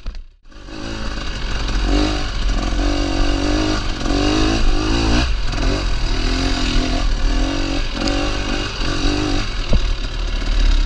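Dirt bike engine running on a trail ride, the revs rising and falling over and over as the rider works the throttle. The sound drops out for a moment at the very start, then comes back.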